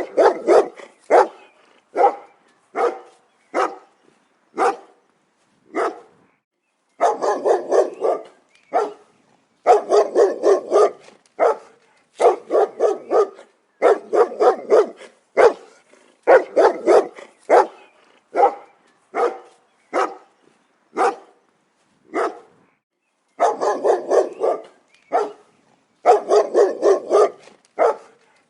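A dog barking repeatedly: single barks and quick runs of barks, with brief gaps between them.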